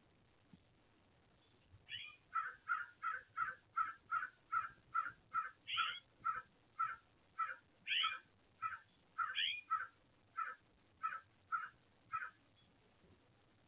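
A bird calling over and over: a long series of about twenty short, evenly spaced calls, roughly two a second, starting about two seconds in and stopping a little before the end.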